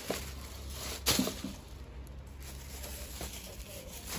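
Thin plastic takeaway bags rustling and crinkling as they are handled, with one sharp, louder crinkle about a second in.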